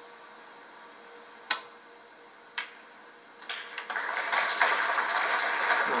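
Two sharp snooker-ball clicks about a second apart: the cue striking the cue ball, then the cue ball hitting a red on a long pot. From about halfway, audience applause builds. All of it is heard through a television speaker.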